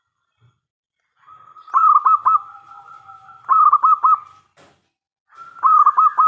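Zebra dove (perkutut) cooing: three calls, each a soft opening followed by a quick run of loud, looping notes.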